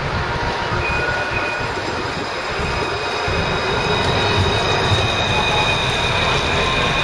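Luas light-rail tram (Alstom Citadis) pulling in along the stop: a low rumble of wheels on the street-running rails with steady high-pitched whining tones that grow louder about halfway through.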